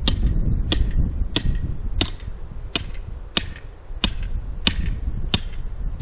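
Metal fence stake being driven into the ground by hand: about nine sharp metal-on-metal blows at a steady pace of roughly one every two-thirds of a second, each ringing briefly, with wind rumbling on the microphone.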